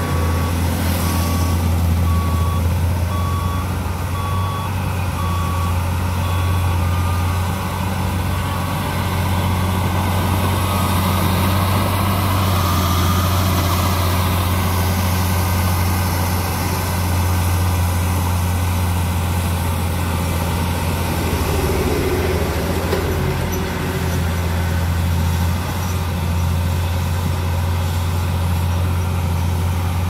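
BD65 crawler bulldozer's diesel engine running steadily under load as it pushes earth, a low, constant drone. A reversing alarm beeps repeatedly over it for the first several seconds.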